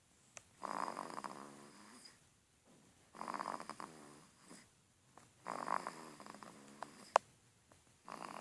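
A sleeping baby snoring: three rattling snores about two and a half seconds apart, with the next one starting near the end. A single sharp click comes about seven seconds in.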